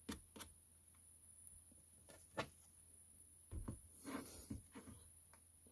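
Faint handling sounds as an iron cannonball is set down on a wooden desk: a few soft clicks, then a low knock a little over halfway through with a brief rustle after it.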